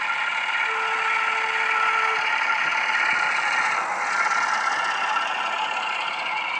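Model Class 08 diesel shunter's ESU LokSound decoder playing its engine sound through the loco's small speaker as the loco runs past, with the clatter of the model wagons' wheels on the track. A plain steady tone sounds for about a second and a half near the start.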